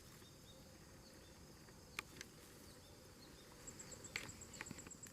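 Near silence with faint outdoor hiss. A high, evenly pulsed insect call starts about two-thirds of the way in, and there are a few soft clicks.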